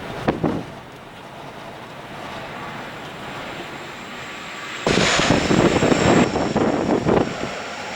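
Dash-8 Q400 turboprop airliner running in flight, a steady engine noise with a faint high whine. About five seconds in, strong wind gusts hit the microphone and the noise jumps much louder and gusty.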